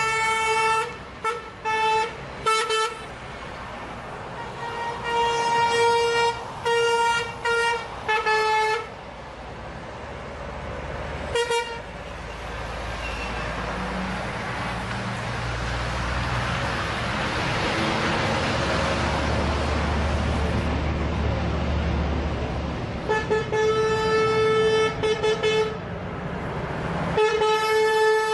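Semi-truck air horns tooting in quick runs of short blasts. In the middle a heavy truck drives close past, its engine and tyre noise swelling and fading, before more runs of toots near the end.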